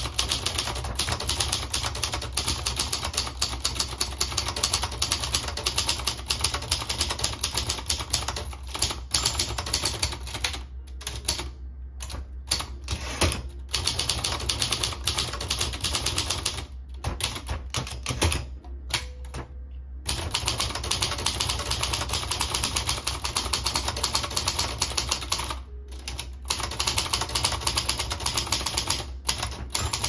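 Silver Reed ultra-portable manual typewriter (Royal Mercury) being typed on fast: a dense, quick run of key and typebar strikes, broken by a few short pauses.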